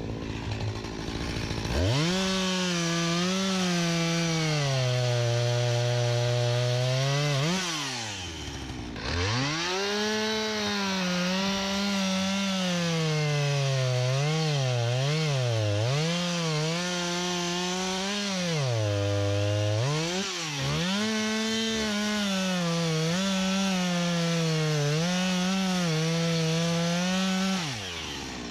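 Stihl MS 251 C two-stroke chainsaw revved up about two seconds in and cutting through an elm trunk, its engine note sagging under load and picking up again. It drops off briefly twice, then the throttle is released near the end.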